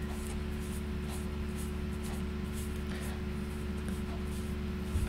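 Foam brushes stroking paint up and down along paper-textured craft wands: soft scratchy strokes, about two a second, over a steady low hum.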